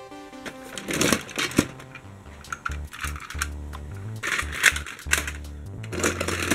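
Diecast toy trams and buses clattering against each other in a plastic storage box as a hand rummages through them, in several short bursts. Background music with a low bass line plays underneath.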